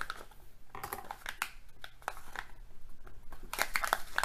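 Crinkling and crackling of a Kinder Joy toy's small plastic wrapper being handled and pulled at in an attempt to tear it open, in short irregular bursts with a few sharp clicks.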